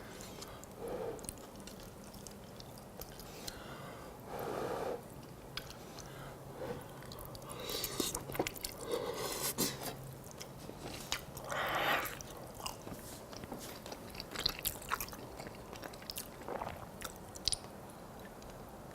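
A person chewing and biting a mouthful of spaghetti with meat sauce, wet mouth sounds and small clicks scattered throughout.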